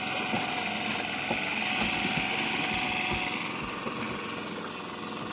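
A small engine on an outrigger fishing boat running steadily, with a hiss that swells briefly in the middle.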